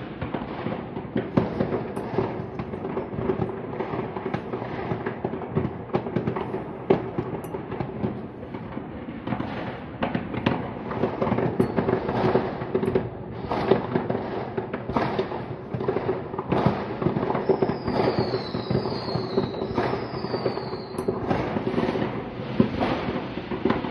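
Many fireworks going off across the neighbourhood: a near-continuous run of bangs and crackling. About three-quarters of the way through, three falling whistles cut through.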